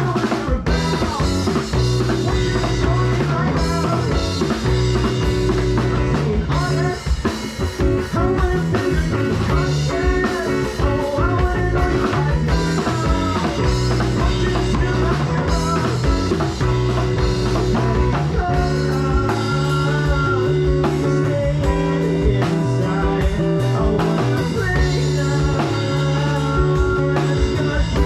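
Live rock band playing an instrumental passage: electric guitar over bass and a drum kit with a steady beat.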